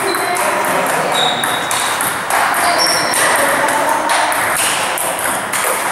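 Table tennis rally: celluloid balls clicking off bats and the table about three times a second, with more ball hits coming from play at the next tables.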